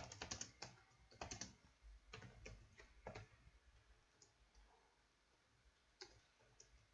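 Faint, irregular keystrokes on a computer keyboard in short clusters, with a lull of a second or so shortly before the end.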